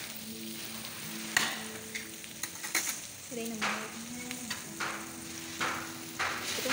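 Shrimp and meat sizzling on a hot grill pan over a portable gas stove, a steady frying hiss with scattered sharp pops and clicks, the loudest about one and a half seconds in.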